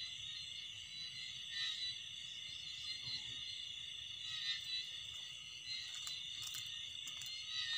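A steady night chorus of insects, a continuous high shrill trilling, with a few faint clicks near the end.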